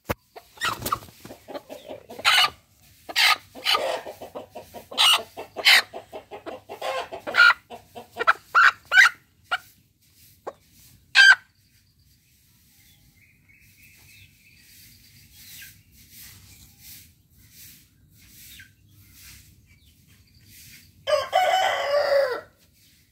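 A hen squawking and clucking in quick, loud bursts for the first eleven seconds as it is held down, a sign of its struggling against being pinned. After a quiet stretch there is one loud, drawn-out chicken call lasting about a second and a half near the end.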